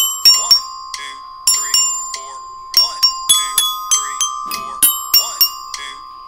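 Glockenspiel (orchestra bells) struck with mallets, playing short groups of quick notes separated by brief rests, the metal bars ringing on between strikes.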